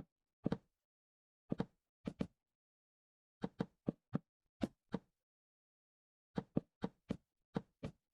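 Knocks on wood in short, irregular runs: a few single or paired knocks early on, then quicker runs of four to six sharp knocks.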